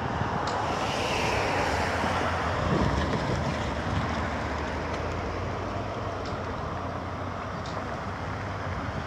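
Street traffic: a car passes close by between about one and three seconds in, its tyre and engine noise falling in pitch as it goes, over a steady low traffic rumble.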